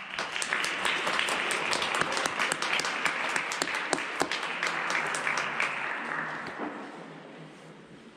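Audience applause that breaks out all at once and tapers off over the last couple of seconds.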